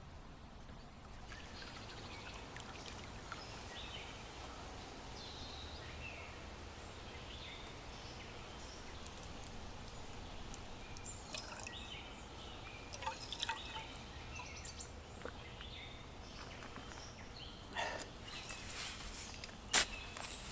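Quiet outdoor ambience with scattered faint bird chirps. From about halfway in come light clicks and knocks, growing more frequent, with a sharp crack shortly before the end.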